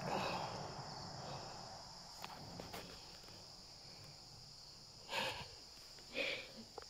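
Faint, steady, high-pitched chirring of insects, with two brief soft sounds about five and six seconds in.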